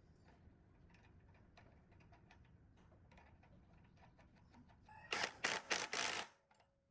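Faint light clicks and taps of workshop handling, then about five seconds in four or five loud, rapid noisy bursts lasting about a second that cut off sharply.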